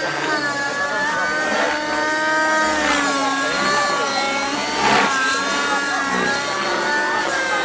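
Nitro RC helicopter in flight: its Redline 56 glow engine and rotor blades whine, the pitch rising and falling as it manoeuvres. There are brief louder surges, the strongest about five seconds in.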